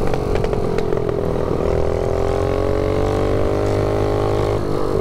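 Mini bike's small single-cylinder engine with a stage one exhaust, running under throttle as the bike rides. A few sharp pops come in the first second; then the engine note climbs slowly as it pulls, and drops a little before the end as the throttle eases.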